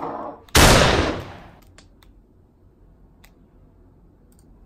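A sudden loud blast-like sound effect about half a second in, fading away over about a second and a half, followed by a faint low hum.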